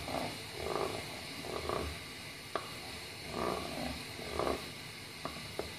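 Wooden spoon stirring and scraping a thick, hot mixture of honey, butter and sweetened condensed milk in a saucepan as it cooks down toward caramel: soft, uneven swishes, with a few light clicks.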